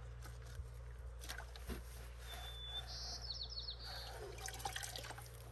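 A songbird sings briefly a little past halfway: a thin high whistle, then a quick run of four falling notes. Faint scattered clicks and rustles come and go around it.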